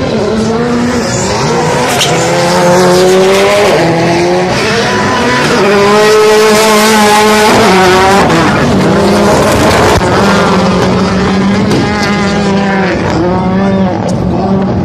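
Rallycross Supercar race cars running hard through the bends, engines revving high and dropping sharply again and again at gear changes and lifts, with more than one car's engine note overlapping.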